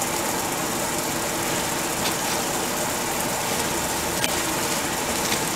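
Steady mechanical whirring noise, like a small motor running, with a couple of faint clicks.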